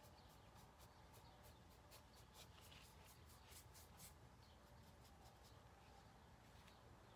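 Faint scratchy strokes of a flat paintbrush's bristles dragged lightly across stretched canvas, many quick strokes in a row, thinning out about four seconds in.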